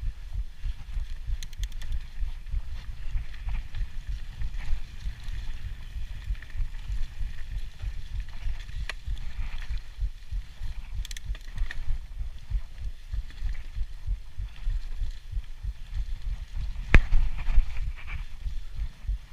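Mountain bike descending a dirt forest singletrack: wind rumbling on the on-bike camera's microphone and tyres rolling over dirt, with scattered knocks and rattles from the bike over roots and bumps. A sharp clack, the loudest sound, comes about 17 seconds in.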